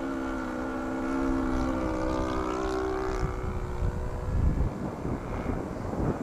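Engine of a radio-controlled scale Zero fighter droning steadily in flight, its pitch shifting slightly, then fading into wind rumble on the microphone about four seconds in.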